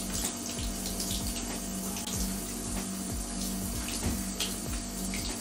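Handheld shower head on a gentle rain setting spraying water onto leather Doc Martens boots standing in a bathtub: a steady hiss of falling water on leather and the tub.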